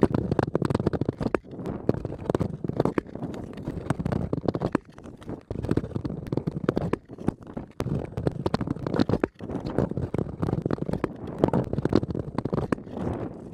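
Ice skates gliding and scraping over rough natural ice: a dense crackle of many small clicks over a low rumble, dipping briefly a couple of times.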